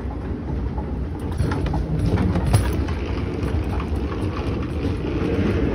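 Steady rumble of a moving walkway, with the wheels of a rolling bag running over its grooved metal tread and a few light knocks between about one and two and a half seconds.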